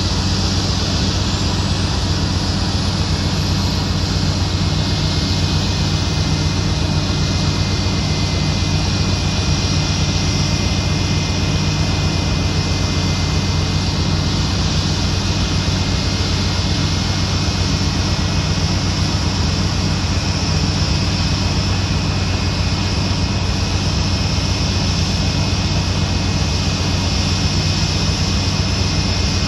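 Airbus A319 jet engines idling: a steady high whine over a low rumble, unchanging throughout.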